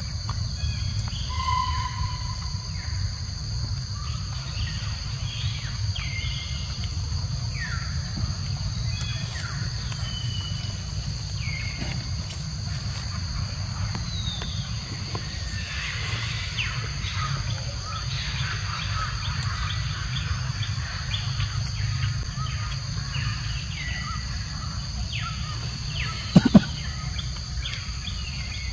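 Forest ambience: a steady high insect drone, with short falling chirps scattered through it over a low steady rumble. A single sharp knock comes near the end.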